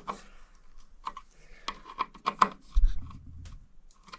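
Sharp clicks and scraping of a light switch and its wires being handled and pushed into a wall electrical box, with a dull thump about three seconds in.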